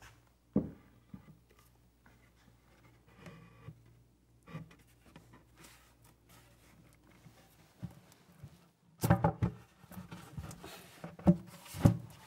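Plywood cabinet panels being fitted together by hand on a workbench: a sharp knock about half a second in, soft rubbing and handling, then a cluster of louder knocks and bumps in the last few seconds as the glued side panel is seated against the case.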